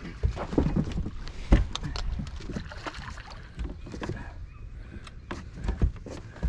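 Irregular knocks and thumps of footsteps and gear on a fishing boat's deck, over a steady low rumble of wind and water.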